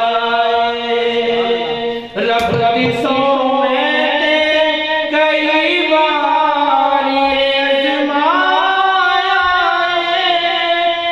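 A man chanting a devotional song into a microphone, holding long, drawn-out notes that slide from pitch to pitch, with a brief pause about two seconds in.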